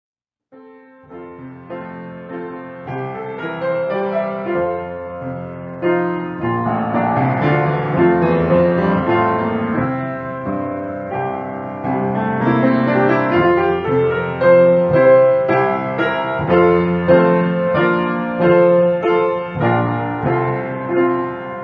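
Solo piano music, chords under a melody, beginning after a brief gap of silence.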